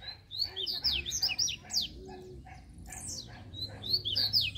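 Wild songbirds singing, a blue-black grassquit (tiziu) among them: two bursts of quick, high chirping notes, the second near the end.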